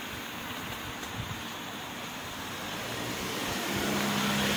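Steady wind rush on the microphone of a moving bicycle rider; about three and a half seconds in, a motor vehicle's engine hum comes in and grows louder.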